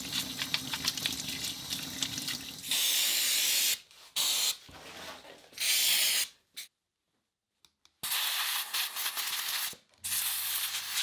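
Tap water running over a ball bearing as it is washed out to clear the dust gumming it up, then several short hisses from an aerosol spray can, with a second or so of silence in the middle.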